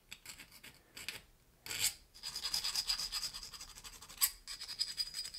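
Small needle file rasping against a small model truck part, with quick, short back-and-forth strokes. The strokes are scattered at first and run densely from about two seconds in.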